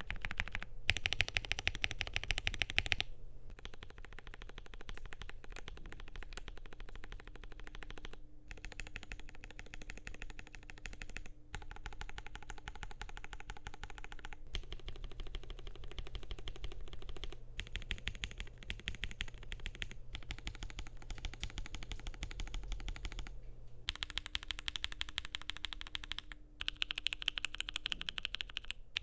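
Fast, continuous typing on a Keychron Q6 Max mechanical keyboard with lubed and filmed MOONDROP x G Square Lunalight switches, a polycarbonate plate and foam mods: a rapid stream of muted key clacks, broken into several runs by short pauses.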